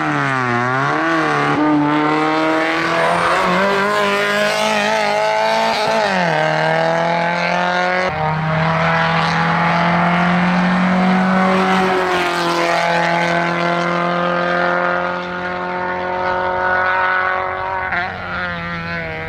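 Opel Ascona 2.0i GT rally car's 2.0-litre four-cylinder engine at full throttle on a hillclimb run, revs climbing and dropping sharply at each gear change, with a long held high note in the middle. The engine sound weakens near the end as the car passes.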